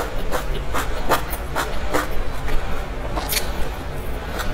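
Close-up eating sounds: chewing and moist mouth smacks, with clicks of chopsticks as a steamed dumpling is picked up, coming as a quick run of sharp clicks in the first two seconds and another a little past three seconds. A low steady rumble sits underneath.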